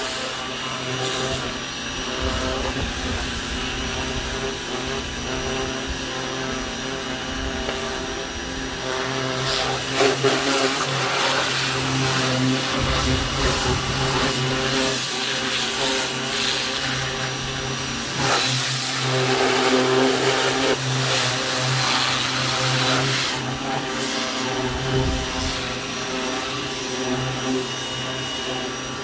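Ryobi 1600 PSI electric pressure washer running, its motor and pump humming steadily under the hiss of water spray striking a car's body, the spray swelling and fading as the wand moves.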